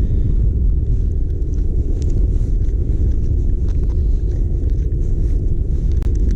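Wind buffeting the microphone: a loud, steady low rumble, with a few faint ticks near the end.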